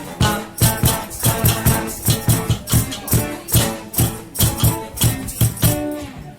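Acoustic band music: guitar and bass chords with a shaker and tambourine keeping a steady beat, in a break between sung vocal lines.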